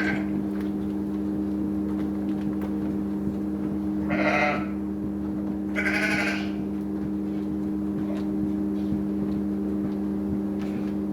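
Sheep bleating twice, about four and six seconds in, over a steady low hum.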